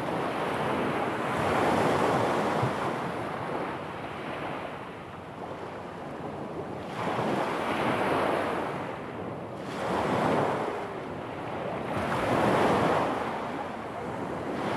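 Sea waves breaking and washing up a stony shore, swelling and fading in several surges a few seconds apart.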